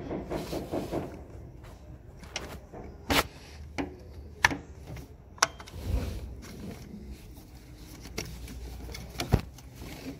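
Scattered sharp clicks and knocks of hands and tools handling a diesel engine's timing belt, sprockets and tensioner pulley during a timing-belt change, over a low steady hum.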